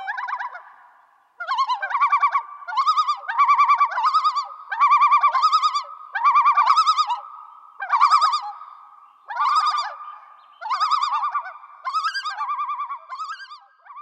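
A bird calling over and over: about a dozen quavering, warbling calls, a little over a second apart, over a fainter held note.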